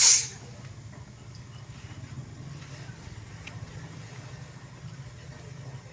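Refrigerator compressor running with a steady low hum, holding pressure in the system to test the new condenser's welded joints for leaks. A loud hiss of gas cuts off just as the hum begins, and a few faint ticks sound over it.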